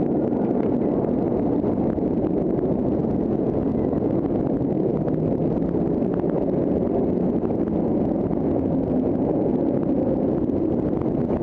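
Steady rush of wind buffeting the microphone of a camera riding a steel roller coaster train at speed, mixed with the train running along its track.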